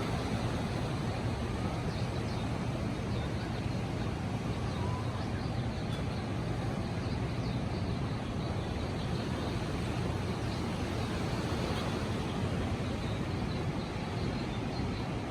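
Steady wash of ocean surf on a beach, with a constant low hum underneath and faint high chirps here and there.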